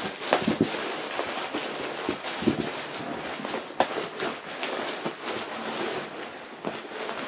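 Bubble wrap crinkling and rustling against a cardboard shipping box as a wrapped guitar is pulled out, with irregular crackles and small knocks.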